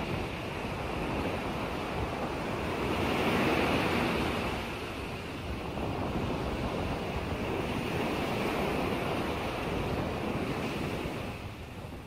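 Wind-driven waves on a large freshwater lake washing continuously, swelling louder about three to four seconds in and again a few seconds later, with wind rushing over the microphone.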